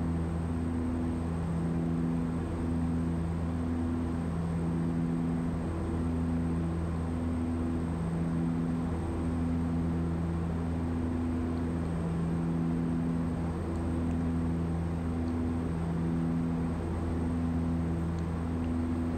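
The twin PT6A turboprop engines and propellers of a DHC-6 Twin Otter seaplane droning steadily in flight, heard from the cockpit: a low hum and several steady tones that swell and fade in a slow, regular throb. Power is back as the aircraft slows for its final approach.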